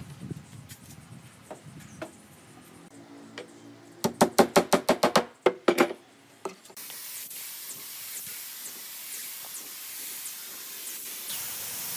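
A quick run of about a dozen loud, sharp knocks, then from about two-thirds of the way in a compressed-air gravity-feed spray gun hissing steadily as it sprays.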